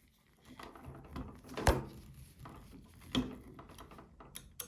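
Knocks and clicks of hands working with small hard parts: one sharp knock about a second and a half in, another about three seconds in, and a few small clicks near the end.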